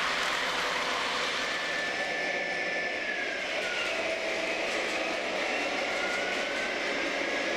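Running sound of an MTH Premier CSX AC4400CW O-scale model diesel locomotive: the Proto-Sound 3.0 speaker plays the diesel engine with a whine that dips in pitch about three seconds in and rises back, over the steady rolling noise of the model on its track.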